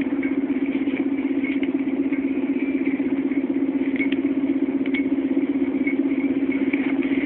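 Volvo Olympian double-decker bus engine idling steadily, heard from inside the bus, with a few light clicks and rattles from the body.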